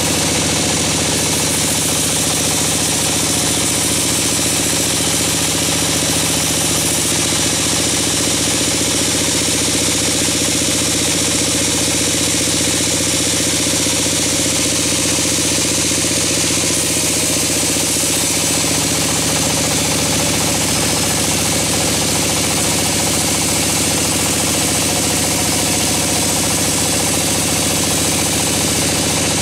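Large vertical band sawmill running steadily, its band blade sawing pine with a constant machine hum under a dense hiss. A slight change in the hum comes a little past halfway through.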